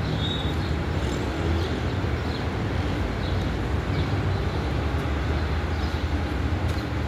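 Industrial horizontal band saw running with a steady low rumble, with faint brief high squeaks now and then.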